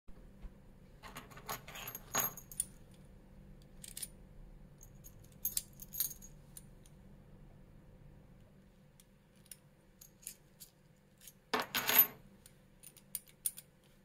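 Small keys on a ring jangling and clinking against a steel disc-detainer padlock as its key is handled in the lock. The clinks come in several short bunches, the loudest near the end.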